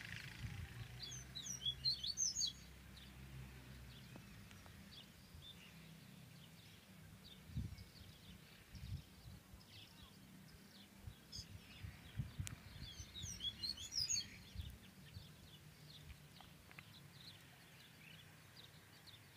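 A caged papa-capim (seedeater) singing faintly at a distance. A fast twittering song phrase comes near the start and another a little past the middle, with scattered single chirps between.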